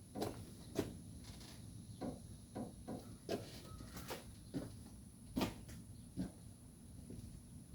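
A series of light knocks and clicks, about a dozen, spaced unevenly roughly every half second over a faint steady hiss.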